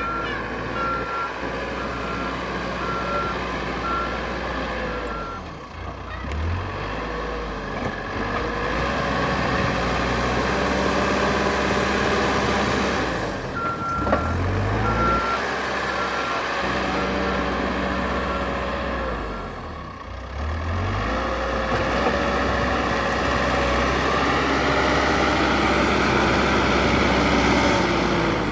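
Caterpillar 432F2 backhoe loader's diesel engine working, its pitch dropping and surging a few times, with a hydraulic whine that rises and falls. Its reversing alarm beeps steadily at one high pitch for the first few seconds and again for several seconds midway.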